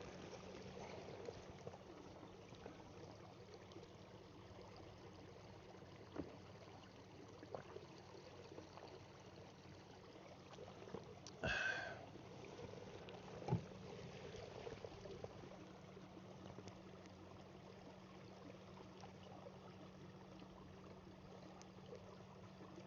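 Faint water lapping and trickling around a kayak, with a few small knocks. About halfway through there is one brief, louder pitched sound.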